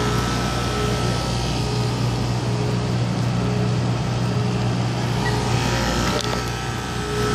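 Steady hum and whoosh of running rooftop air-conditioning equipment: a constant low drone with a steady higher tone over an even rushing hiss.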